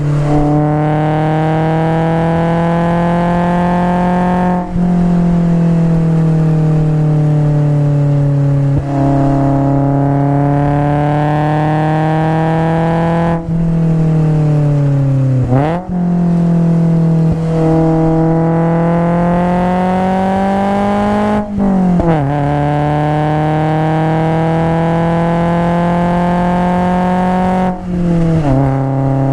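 BMW Z3's 1.9-litre M44 four-cylinder engine running through a Vibrant muffler and Ultra Quiet resonator on 2.5-inch piping. It accelerates in gear with the pitch climbing steadily, and the note drops at each of about six manual gear changes, some with a quick rev blip.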